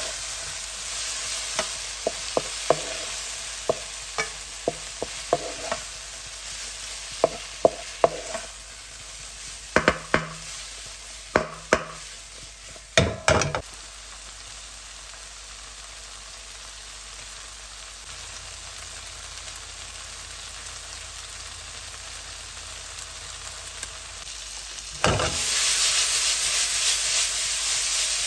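Sliced bell peppers and onions sizzling in a nonstick frying pan as a wooden spatula stirs them, with frequent sharp knocks and scrapes of the spatula against the pan through the first half. The sizzle turns suddenly louder a few seconds before the end.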